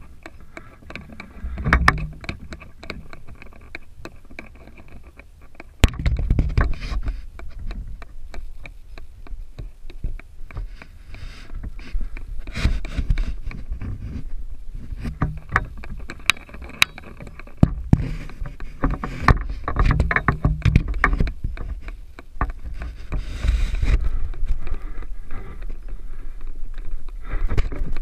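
Gusty wind rumbling on the microphone, with scattered knocks and scrapes as the camera bumps against a wooden nest box's entrance hole.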